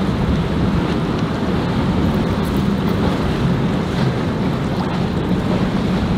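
Yamaha 200 hp outboard motor on a center-console boat running with a steady low hum as the boat moves off, mixed with wind buffeting the microphone and water wash.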